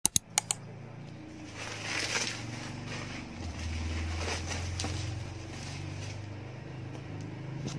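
Bubble wrap and plastic crinkling and rustling as it is pulled off a cardboard box, after a few sharp clicks at the start. A steady low drone runs underneath.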